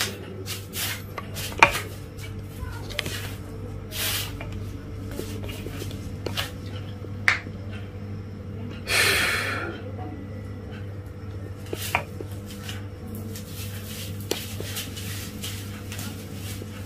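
A person shifting position on a floor mat: soft rustles and light knocks, with a loud breath lasting about a second around nine seconds in. A steady low hum runs underneath.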